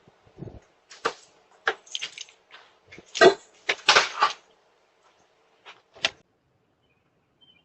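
A low thud, then an irregular run of sharp knocks and clattering bangs, loudest about three to four seconds in, with two more knocks near six seconds.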